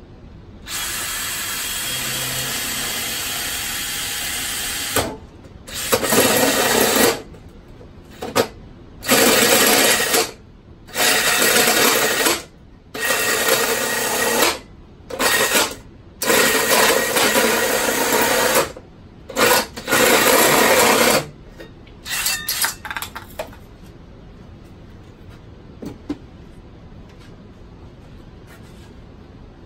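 Cordless drill with a hole saw boring through PVC pipe. It spins steadily for about four seconds, then cuts in about eight loud bursts as the trigger is squeezed and let go, and a few light knocks follow near the end.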